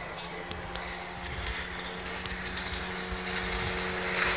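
Outboard motor of a Reef Triton 360 inflatable boat running at speed, a steady drone that grows louder near the end as the boat comes closer, with water hissing off the hull.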